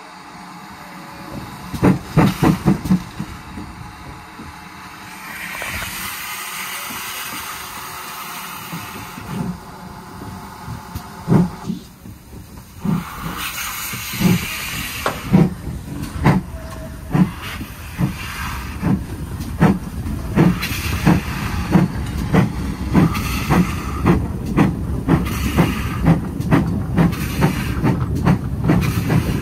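GWR Large Prairie 2-6-2T steam tank engine 4144 running with its train, with steam hiss early on. From about halfway a regular rhythm of knocks sets in, just under two a second.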